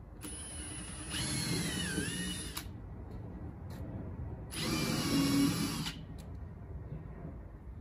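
Cordless drill boring into a wooden board in two bursts. The first runs about two seconds, and its whine dips in pitch near the end as the bit bites. The second is shorter and comes a couple of seconds later.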